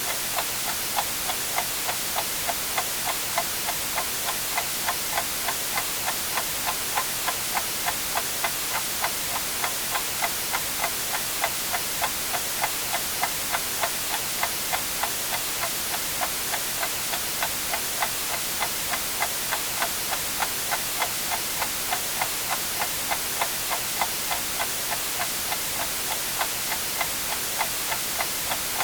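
Clock ticking steadily, about two ticks a second, over a continuous white-noise hiss.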